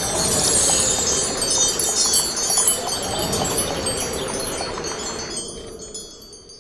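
Chimes tinkling: many high, bell-like tones ringing together over a steady rushing hiss. The chimes thin out and the whole sound fades away near the end.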